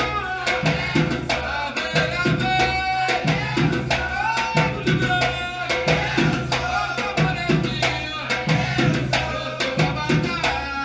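Hand drums in a percussion ensemble playing a steady, driving rhythm, with a pitched melody line that slides and holds notes above the drumming.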